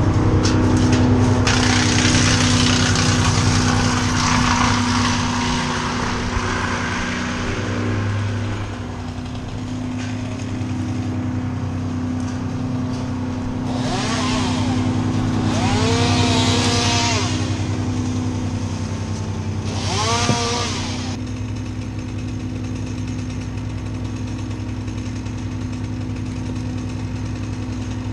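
An engine running steadily, louder and rougher for the first several seconds. About halfway through, a chainsaw revs up and down three times over a few seconds.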